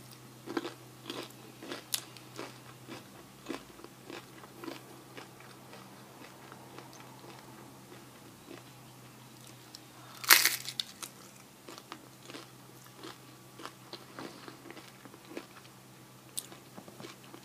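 Close-up eating sounds: crunchy bites and chewing of fried tortillas, a run of short irregular crunches, with one loud crunch about ten seconds in.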